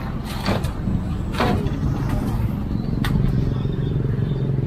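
Steady low rumble of road traffic and engines, crossed by a few short, sharp knocks and clatters of scrap wood being thrown into a dump truck's bed.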